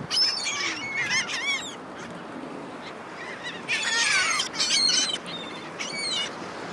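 Gulls calling, many overlapping high squawks in two bursts: one through the first two seconds, and another from about three and a half to six seconds in.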